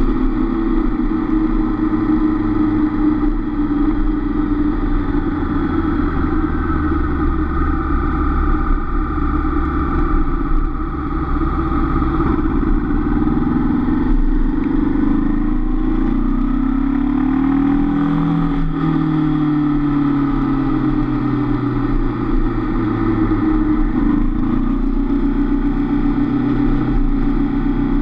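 Honda CB500F's parallel-twin engine running as the motorcycle rides along. A little past halfway the engine note falls as the bike slows, then climbs steadily again as it accelerates.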